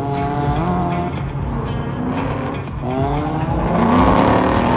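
Mazda RX-7 FC's 13B rotary engine revving hard while drifting, its pitch climbing in the first second, dropping, then climbing again.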